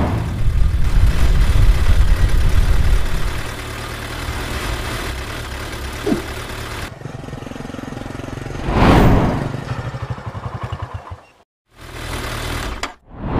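Vehicle engine sound effect for an animated jeep driving: a loud low engine rumble that drops to a quieter steady running after a few seconds. About nine seconds in a swell of noise rises and falls, then the engine chugs in quick pulses and cuts off for a moment near the end.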